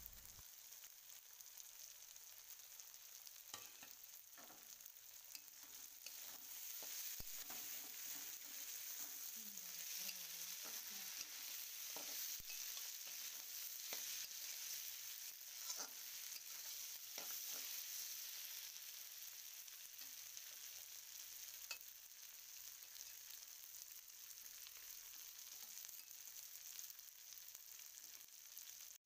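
Bitter gourd, onions and fried potatoes sizzling in oil in a wok, with a spatula stirring and scraping through them and scattered sharp clicks against the pan. The sizzle grows louder through the middle stretch while the food is being stirred.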